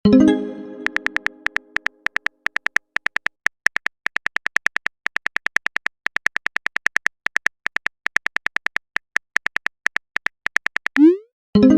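Rapid train of short, identical high beeps, several a second with brief pauses between runs, like a text-scroll blip sound effect ticking out on-screen dialogue. At the start, a low chime-like tone fades over about two seconds.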